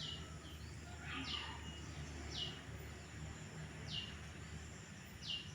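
A bird calling: a short, high, falling note repeated five times, about one every second and a half, over a steady low hum.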